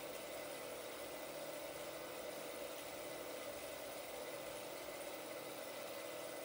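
16mm film projector running: a steady mechanical whir with a fine, rapid flutter from the motor and film transport.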